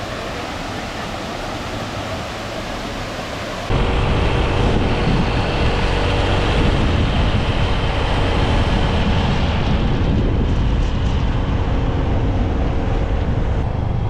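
Steady rushing water of a waterfall. About four seconds in, it cuts abruptly to heavy wind buffeting the microphone over the running of a moving motor scooter.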